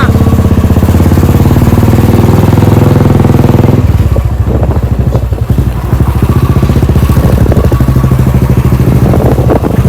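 A vehicle engine running loud and close, with an even pulsing beat; its note changes about four seconds in.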